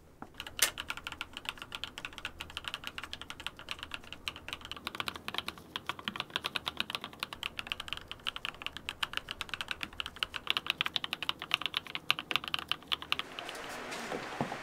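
Fast typing on a mechanical keyboard in a clear acrylic case: a dense, steady stream of key clicks. It opens with one sharp click of a wall light switch, and the typing stops about 13 seconds in, giving way to a steady background hiss.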